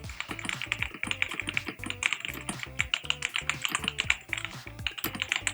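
Fast typing on an Ajazz AK820 mechanical keyboard: a dense, irregular run of key clacks, played as a typing-sound demo over background music.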